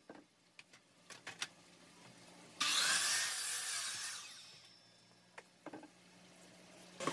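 DeWalt sliding compound miter saw cutting through a block of scrap wood about two and a half seconds in, the blade winding down afterwards. Light knocks of wood being handled on the saw table before and after the cut.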